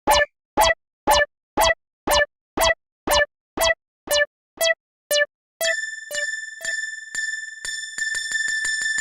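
Level-crossing warning bell ringing 'kan-kan', a sharp ding repeated about twice a second. A little over halfway through it changes into a higher held electronic tone with quick pulses, building into a steady synthesizer chord.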